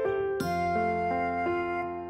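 Background music: a gentle keyboard melody, one note giving way to the next every half second or so.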